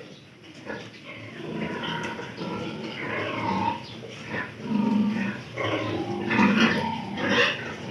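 A group of piglets grunting in irregular bursts, louder in the second half.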